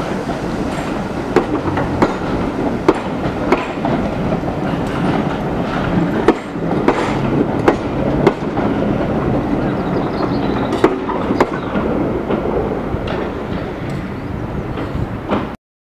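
Passenger coaches rolling past on jointed track: a steady rumble of wheels with sharp clicks over rail joints and points about every half second to a second. The sound cuts off abruptly near the end.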